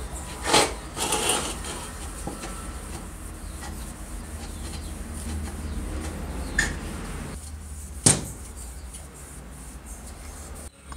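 A cloth rubbing over the brass fuel tank of a Primus kerosene stove in polishing strokes, loudest in the first second or two. There is a single sharp knock about eight seconds in as the tank is handled.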